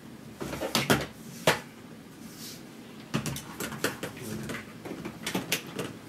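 Plastic clicks and knocks of a Miele S8 cylinder vacuum cleaner's wand and hose being folded down and clipped into its storage position: a string of irregular sharp clicks, the loudest about a second in.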